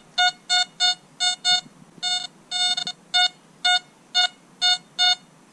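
XP ORX metal detector signalling a target: a run of short beeps, all at the same pitch, about two or three a second, as the search coil is swept back and forth over a small metal buckle.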